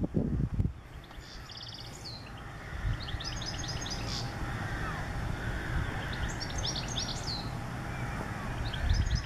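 A small songbird singing, with its phrases of quick, high, falling notes repeated every two to three seconds. Wind buffets the microphone with a low rumble in the first moment.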